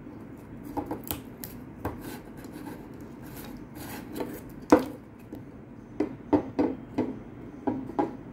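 A clear plastic spool of braided fishing line being handled by hand, with scattered light clicks, taps and rubbing as the line end is worked free from the spool hub. There is a sharper tap about halfway through and a quick run of taps near the end.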